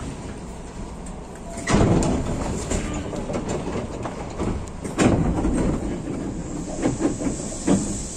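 Hankyu electric train running on the rails with a steady rumble, its wheels clanking over rail joints or points: a heavy clank about two seconds in, another about five seconds in, then a few lighter knocks near the end.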